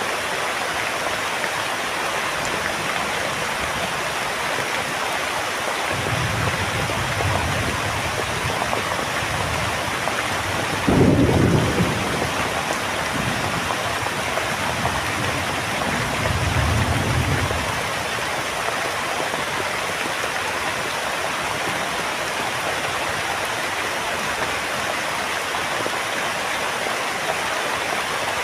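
Heavy rain falling steadily, with thunder: a low rumble starts about six seconds in, a louder crack comes about eleven seconds in, and the rumbling swells once more before dying away around eighteen seconds.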